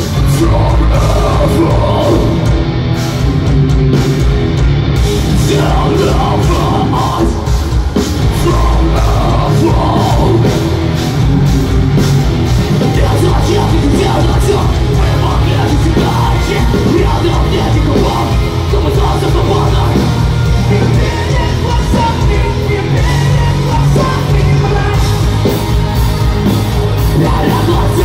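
Live heavy rock band playing loud: distorted electric guitars, bass and pounding drums with a shouted vocal, heard from within the crowd.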